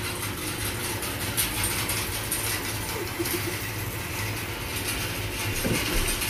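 Hay bale elevator running, a steady mechanical clatter of its chain and slats over a low motor hum as it carries a bale upward.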